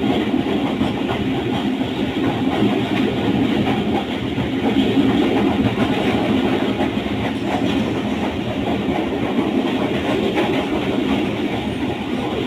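Running noise of a moving passenger train: a steady rumble with the clatter of wheels over rail joints.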